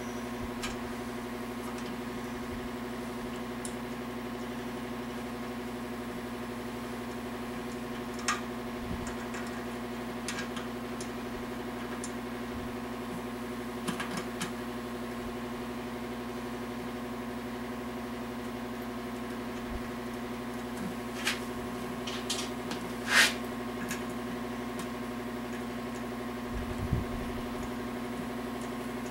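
A steady hum throughout, with now and then a short click or knock from tools and parts being handled on the engine block under assembly; the loudest knock comes about two-thirds of the way in, and a dull low knock follows near the end.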